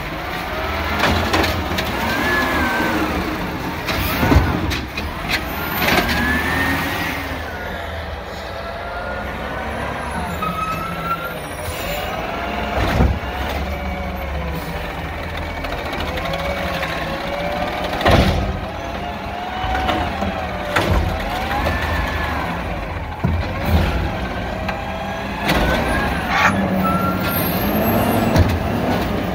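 Peterbilt 320 garbage truck with an Amrep Octo automated side-loader arm at work: the engine rumbles steadily and rises and falls in pitch again and again as the hydraulic arm lifts and dumps carts. A few sharp bangs break through, from the carts and the arm.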